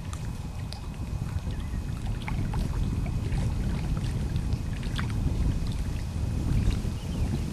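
Wind buffeting the microphone, a steady low rumble, with faint short ticks and chirps scattered through it.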